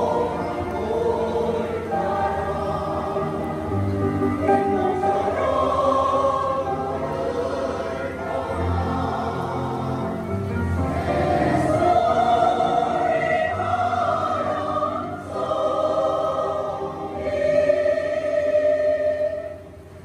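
Mixed choir of older men and women singing a Korean choral song in parts, with long held notes.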